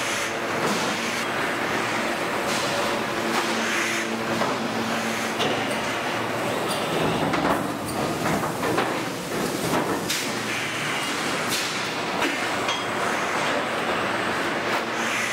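Car-body stamping press line running: a steady machine din with irregular metallic clanks and knocks as robot arms move sheet-metal panels in and out of the press.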